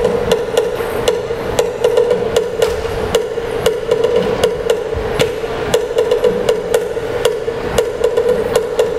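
Percussion music for the Binanog dance: sharp, even knocks about three to four a second over a steady ringing tone.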